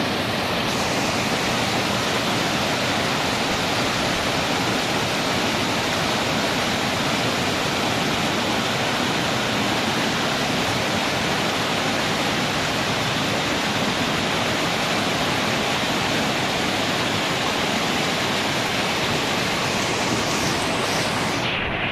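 Water of a small rocky waterfall cascading over rock ledges into a pool, a steady, even rushing.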